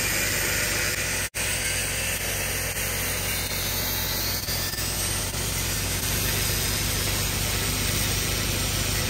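Handheld angle grinder with an abrasive cutoff wheel cutting steel rectangular tubing: a steady, hissing grinding screech from the wheel biting into the metal. It breaks off for an instant about a second in.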